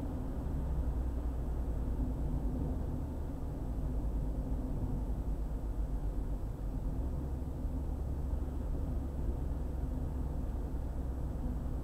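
Steady low rumble of a car driving on a highway: tyre and engine noise with no distinct events.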